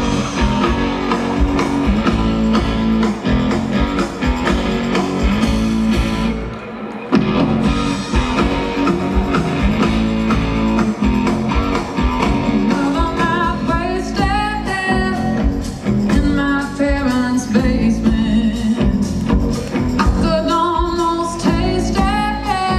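Live band playing with electric guitar, drum kit and upright bass. The band drops back briefly about six seconds in, and a woman's lead vocal comes in about halfway through.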